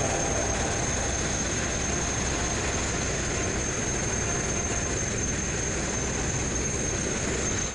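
Steady hiss of an abrasive blasting nozzle stripping a boat hull, with a thin high whistle over it. It runs evenly and cuts off suddenly at the end.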